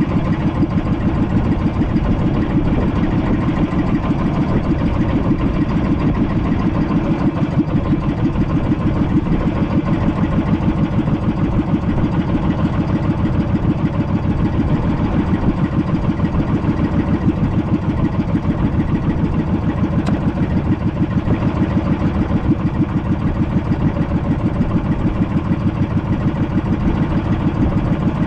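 Small boat engine running steadily at an even speed, with a fast regular pulse.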